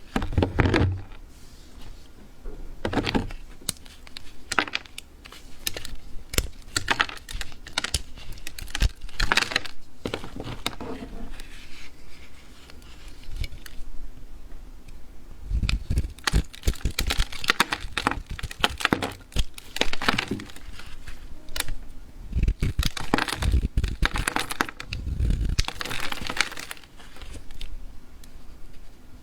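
Knife cutting through a bar of dried soap: repeated crisp cracking and crackling strokes, coming in clusters with short pauses between them.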